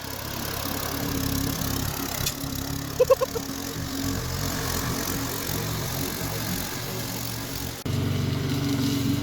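Lawn mower engine running steadily. About three seconds in, three quick high-pitched notes sound over it, and near the end the engine is suddenly louder.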